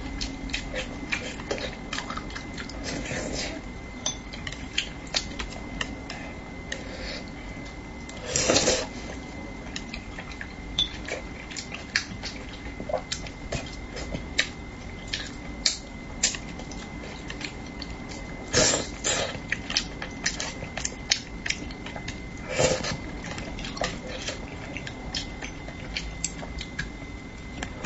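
Close-up eating sounds: chopsticks clicking against a ceramic bowl and plate many times while spicy braised fish is eaten, with soft mouth sounds. Three louder, longer noises stand out, about eight, nineteen and twenty-three seconds in.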